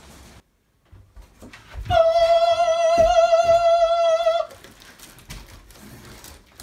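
A single high musical note, held steady with a slight waver for about two and a half seconds, starting about two seconds in and stopping abruptly.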